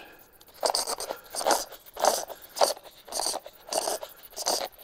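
Used oil filter cartridge being tugged and twisted loose from its snap-in seat in the oil filter housing lid, making a run of short rubbing, scraping noises about two a second.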